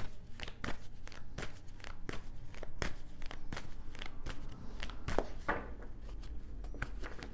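Oracle cards being shuffled and handled by hand: a run of short, crisp card clicks and slaps, about three a second.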